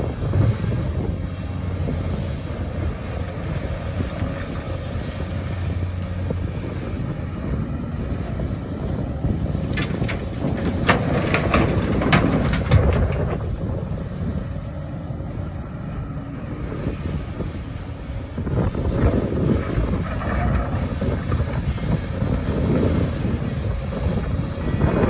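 Hydraulic excavator running under load while digging rock, its diesel engine a steady low hum, with a cluster of sharp knocks and clanks about ten to thirteen seconds in. Wind buffets the microphone.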